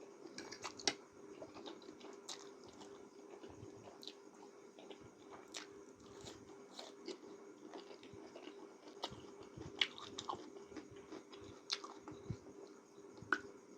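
Mouth sounds of someone chewing a mouthful of spicy noodles: soft wet smacks and clicks at irregular intervals, over a faint steady hum.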